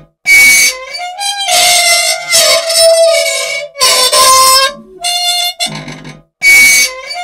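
Loud, harmonica-like squealing and groaning from an unoiled old machine, its metal parts running dry. The squeals rise and fall in pitch and start and stop in a repeating cycle every few seconds.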